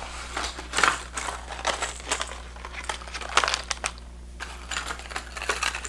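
Plastic blister packs of fishing lures crinkling and crackling irregularly as they are handled and gathered together, with a brief lull about four seconds in.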